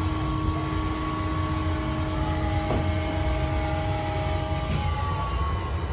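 Studer S30 CNC cylindrical grinder running: a steady low machine hum with several steady whining tones over it. There are a couple of short clicks, and one of the tones cuts out about three-quarters of the way through.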